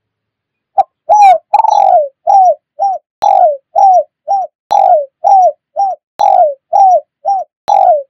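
Spotted dove (tekukur) lure-call recording: after a second of silence, a fast, even run of short coos, about two a second, each bending downward at its end. Several of the coos begin with a small sharp click.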